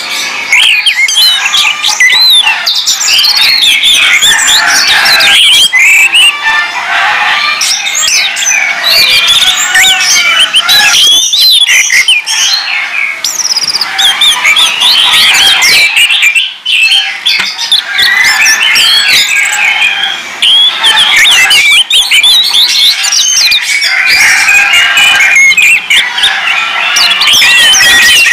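Orange-headed thrushes singing loudly and continuously, a dense run of quick, varied whistles, chirps and sliding notes that overlap one another, with only brief breaks.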